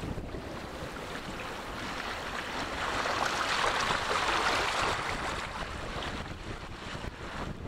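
Small waves washing and breaking over shallow water at a sandy shore, swelling to a louder wash about halfway through, with wind buffeting the microphone.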